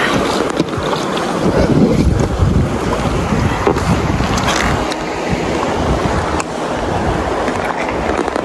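Rushing river water against a boat running the rapids, with wind buffeting the microphone; a loud, rough, steady rush.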